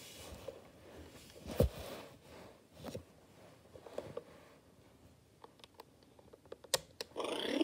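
Scattered soft knocks and clicks of a Fisher-Price toy tablet being handled on carpet and its edge switch worked. Just before the end the tablet switches on with a short electronic sound rising in pitch.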